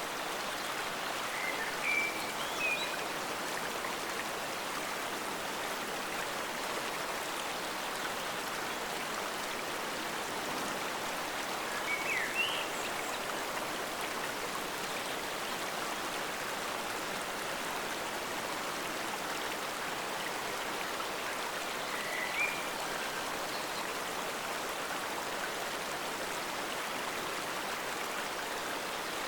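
Forest stream flowing steadily with an even rushing hiss. Brief high chirps come three times, about ten seconds apart.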